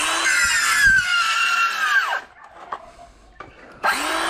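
Ryobi cordless circular saw cutting through a green bamboo pole: the blade's whine drops in pitch under load, winds down about two seconds in, and the saw starts up again near the end.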